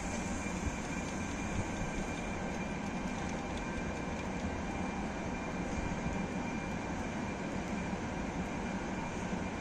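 Trenitalia E464 electric locomotive, leading a convoy with a D245 diesel shunter and a second E464, rolling slowly into the station: a steady train rumble with a faint steady high tone above it.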